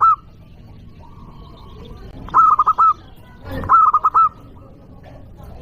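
Zebra dove (perkutut) cooing: two quick phrases of four or five rolling notes each, about a second apart, with the end of an earlier phrase at the very start.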